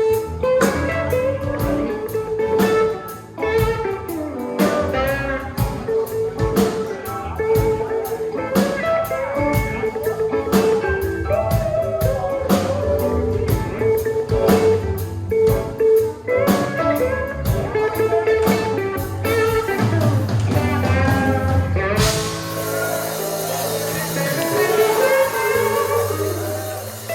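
Live band playing a blues-rock instrumental passage: an electric guitar takes the lead over bass and drum kit. About 22 seconds in, the drum strokes give way to a sustained cymbal wash over held chords.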